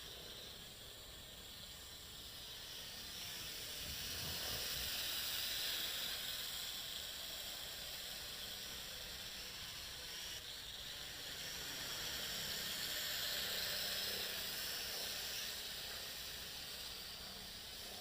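JXD 509 quadcopter's motors and propellers buzzing in flight, growing louder twice as it passes close and easing off as it moves away.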